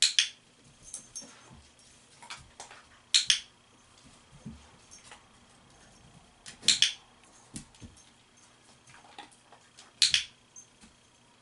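Dog-training clicker clicked four times, about three and a half seconds apart, each a sharp double click, marking the dog's paw touches on the target. Faint clinks and soft taps of the dog moving on the mat in between.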